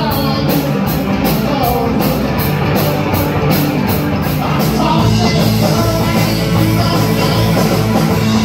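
Live rock band playing loud, with a steady cymbal beat about three strokes a second through the first half, after which the cymbals drop back and the bass and low end grow heavier.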